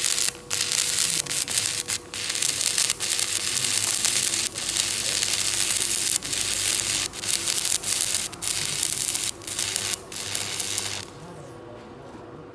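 Stick (arc) welding on steel plate: the arc crackles and sizzles steadily, breaking off for an instant many times along the way, then stops about 11 seconds in, leaving a faint steady hum.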